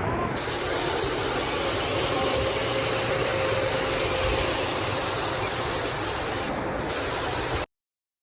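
Waterfall at a dam: a steady, dense rush of falling water that cuts off abruptly near the end.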